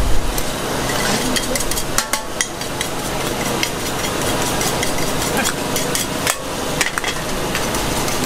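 Metal ladles scraping and clinking against a large wok as a big batch of instant noodles (Maggi mee goreng) is stir-fried, with repeated sharp clinks over a steady sizzle.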